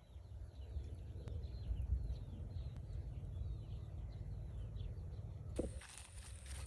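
Small birds chirping over and over in short falling notes, above a steady low rumble. About five and a half seconds in, the birdsong gives way abruptly to a rustling, ticking outdoor sound.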